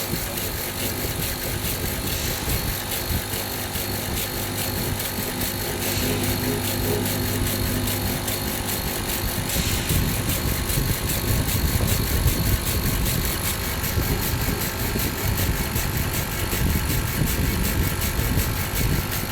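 Stone-carving CNC machine running, a steady motor noise with several held tones and a rough rumble that grows louder about halfway through, over a fast even ticking.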